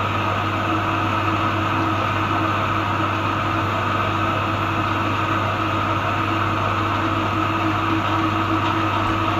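Electric meat grinder's motor running with a steady hum as chunks of raw meat are fed through and minced.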